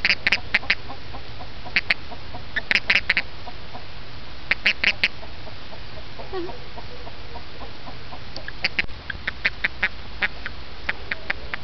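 Arizona toad giving its release call while being held: bursts of three to six short, high chirps in quick succession, repeated several times with pauses between. The call is the toad protesting at being picked up.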